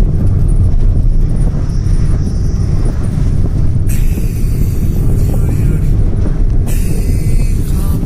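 Steady low rumble of a car's engine and road noise, heard from inside the moving car on a mountain road. A brighter hiss joins it about halfway through and again near the end.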